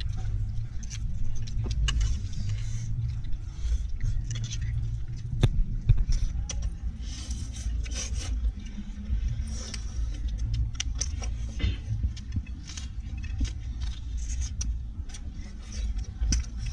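People eating with their fingers: mouth smacks and small clicks of chewing and handling food, over a steady low rumble.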